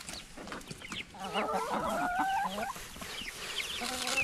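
A flock of hens clucking and calling as they crowd around scattered feed, with many short clucks overlapping and a louder run of wavering calls about a second in.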